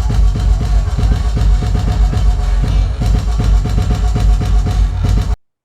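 Loud music with a heavy, pulsing bass beat and drums, played through the Blizzard Audio carnival sound system; it cuts off abruptly near the end.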